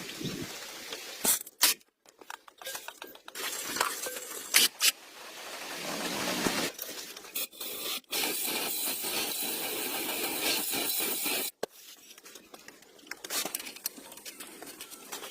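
Workshop sounds of hand work on metal parts: scattered clicks, clinks and scrapes, with a steady hiss that starts a little past the middle, lasts about three seconds and cuts off suddenly.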